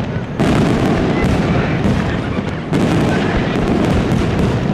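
Aerial firework shells bursting in rapid succession, with dense popping and rumbling throughout. A fresh loud barrage starts about half a second in and another just under three seconds in.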